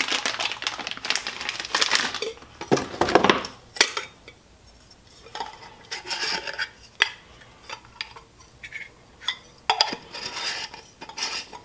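A small metal alcohol burner being handled: scattered light metallic clinks and taps. In the first couple of seconds its plastic wrapping crinkles.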